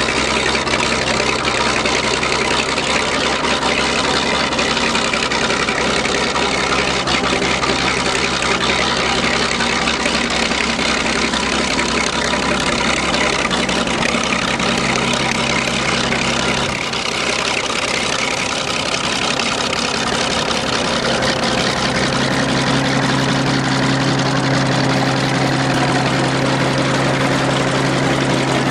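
A vehicle engine running steadily at a loud, even level, its note shifting a little about two-thirds of the way through.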